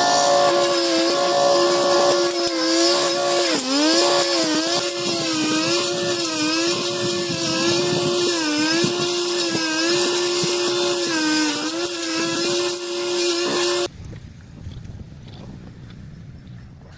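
Small two-stroke engine of a yard tool running at high revs, its pitch dipping briefly again and again as it takes load while cutting, then stopping abruptly near the end.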